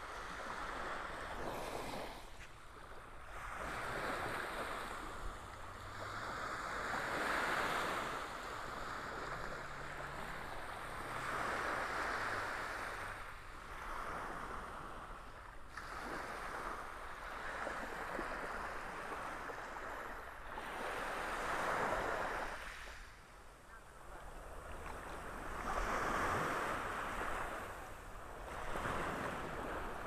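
Surf: small waves breaking and washing up the beach, the sound of the water swelling and fading every few seconds.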